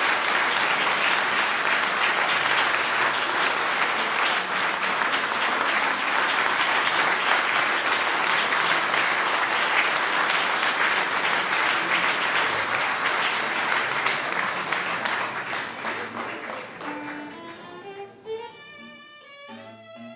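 Audience applauding steadily, the clapping dying away about sixteen seconds in. Near the end, music begins with a rising run of notes.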